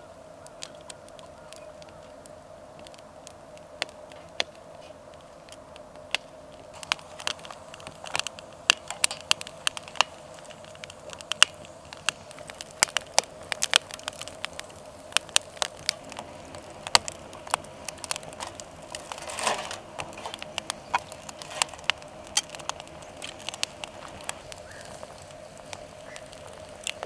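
Split firewood burning in a metal fire stand, crackling with many sharp, irregular pops. A faint steady hum sits underneath.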